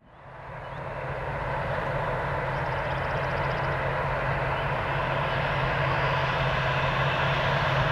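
Distant freight train led by an EMD SD70ACe diesel locomotive approaching: a steady engine drone with a low hum, swelling up in the first couple of seconds and then growing slowly louder as it nears.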